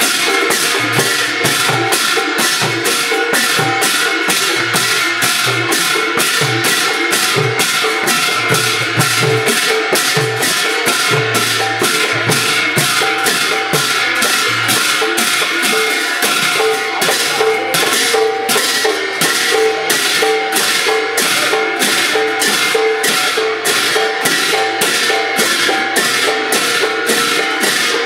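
Assamese khol drums and large bhortal hand cymbals played together: the cymbals clash in a fast, steady beat of about two strokes a second, over the khols' low drum strokes.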